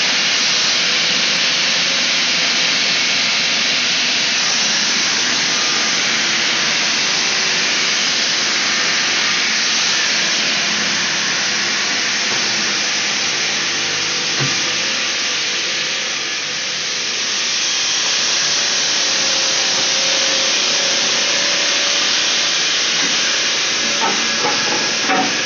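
Marble-working machinery running with a steady, loud hiss.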